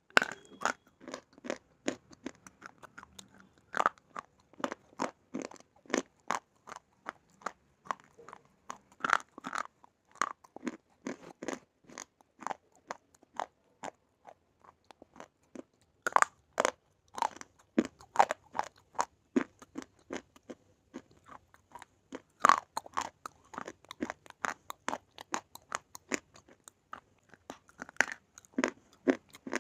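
A person biting and chewing a slate bar: rapid, sharp, dry crunches, with a few especially loud bites spaced several seconds apart.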